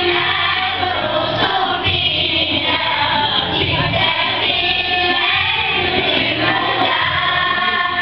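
A group of young girls singing together as a choir.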